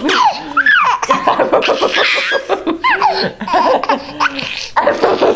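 A baby laughing hard, in runs of quick chuckles broken by high squeals that rise and fall in pitch, with a brief pause near the end.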